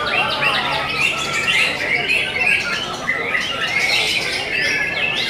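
White-rumped shamas singing at once: a dense, unbroken chorus of overlapping rapid whistles, chatters and trills.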